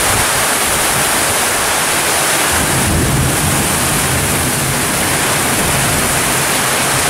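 Heavy downpour falling on a street, a steady loud hiss of rain, with a low rumble of thunder coming in about two and a half seconds in.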